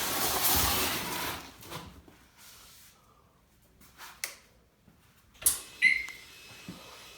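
Hiss-like rustling of hands working close by for about a second, then scattered sharp clicks, the loudest two close together about five and a half seconds in, one ending in a brief falling chirp, as the motorcycle's switches are worked to test the new turn signals.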